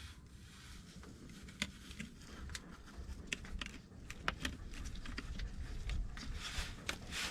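Scattered light clicks and taps as the plastic hose of a hand fluid pump is worked up into a manual transmission's fill hole.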